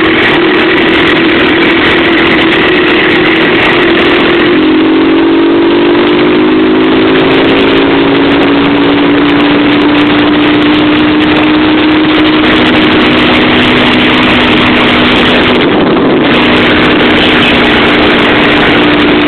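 Several motorcycle engines running together at a steady cruise, their tones drifting slightly up and down, over a loud, even rush of noise.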